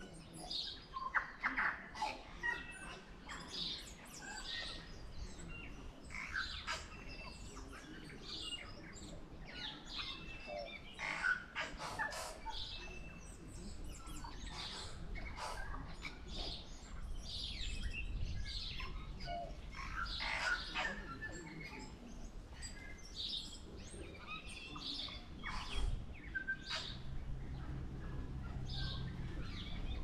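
Tui singing: a run of varied short notes, chirps and sharp clicks, high and low mixed, in phrases with brief gaps between them.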